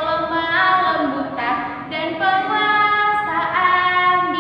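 A woman singing a children's Sunday school song about the fruit of the Spirit, her voice alone, in long held notes that step from pitch to pitch; the sung words include 'kesetiaan' (faithfulness) and 'penguasaan diri' (self-control).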